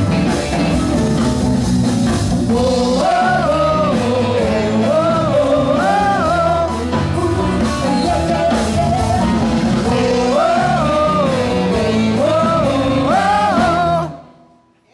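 Live rhythm-and-blues band of drums, bass and electric guitar with women singing the lead over it. The music stops abruptly about a second before the end.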